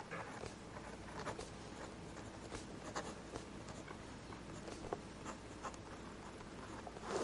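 Pen writing on paper: a run of short, faint scratching strokes of handwriting.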